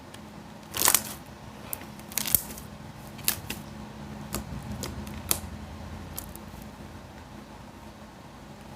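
Sticky slime being handled, giving irregular sharp pops and clicks, the loudest about a second in, over a faint steady hum.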